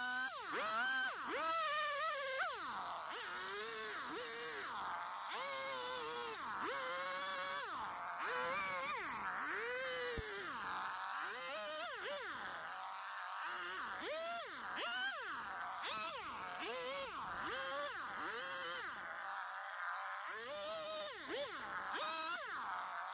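Small chainsaw carving a log, its engine revving up and dropping back again and again, about once a second, as the bar cuts in and is lifted out.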